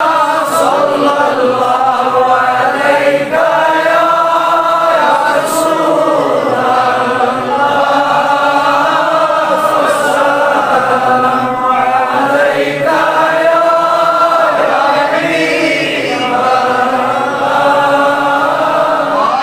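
Men's voices chanting Durood, salutations on the Prophet, together in slow, long-held melodic phrases that break about every three seconds.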